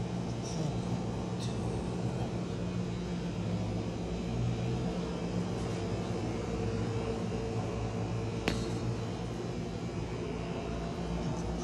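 Steady low mechanical hum, like an engine or machine running without pause, with one sharp click about eight and a half seconds in.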